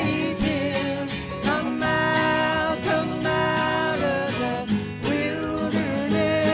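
Country gospel band playing, with acoustic guitar and bass under long held melody notes.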